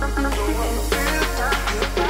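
Background music: a melody of pitched notes over a steady deep bass, with drum hits coming in about a second in.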